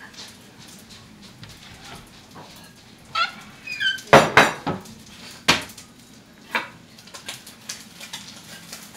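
Dishes clattering on a kitchen counter: a plate set down with a loud clatter about four seconds in, then more knocks and light clinks of a metal utensil against the plate and frying pan. Just before the loudest clatter comes a brief run of high-pitched squeaks.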